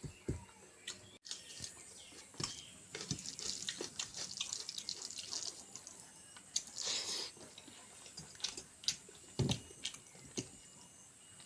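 Close-up wet eating sounds: irregular chewing and lip smacks while chicken and rice are eaten.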